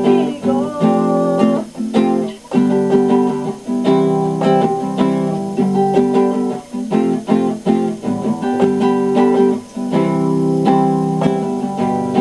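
Instrumental music with no singing: the closing bars of a ballad, chords struck again and again.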